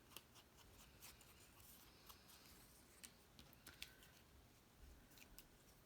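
Near silence with a few faint, light taps and paper sounds: an ink pad dabbed around the edges of small cardstock pieces.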